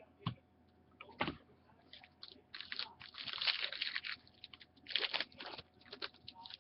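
Trading card pack wrapper being torn open and crinkled, with cards handled: a couple of sharp clicks, then bursts of crackling about two and a half and five seconds in.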